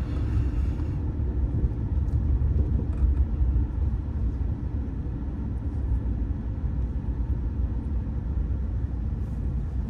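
Steady low rumble of a Subaru Baja, heard from inside the cab.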